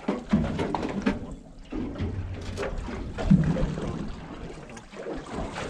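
Small fishing boat at sea: water sloshing against the hull over an uneven low rumble, with scattered light knocks and indistinct voices now and then.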